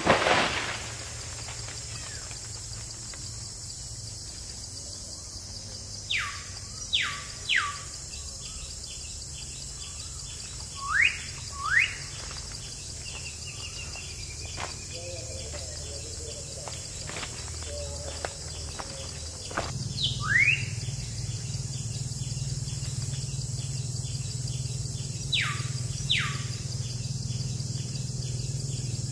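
Tropical jungle ambience: a steady high insect drone, with a bird calling loud sweeping whistles, mostly in pairs, some falling and some rising in pitch. A low hum joins about two-thirds of the way through.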